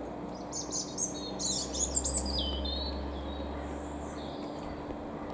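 A small bird chirping: a quick burst of high twittering notes, some sliding down in pitch, about a second in and lasting a second or two, over a steady low hum.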